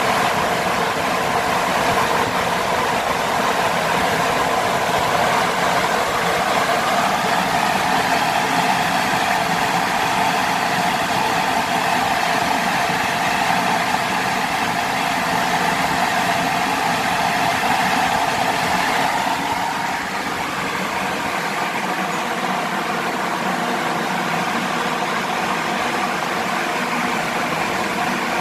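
18-inch, 750-watt, 1400 rpm axial fan running at speed: a steady rush of air with a hum from the blades. The sound drops a little about two-thirds of the way through.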